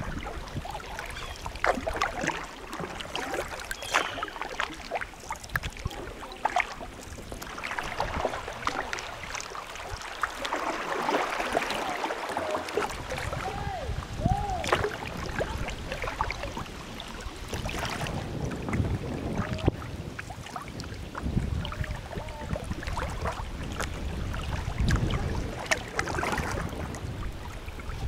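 Kayak moving down a river: irregular paddle splashes and water lapping at the hull, with wind buffeting the microphone at times.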